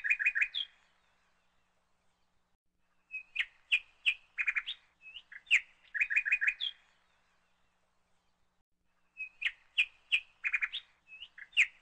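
A small bird singing: bouts of quick high chirps, each run ending in a rising note, with pauses of two to three seconds between bouts.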